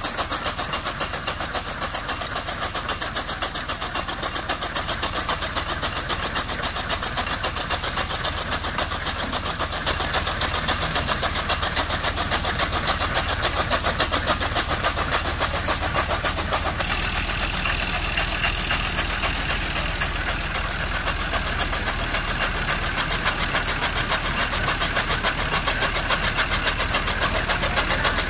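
Tractor-driven toka (chaff cutter) chopping dry fodder stalks: a fast, even chopping from the cutter's flywheel blades over the tractor's engine running steadily under load.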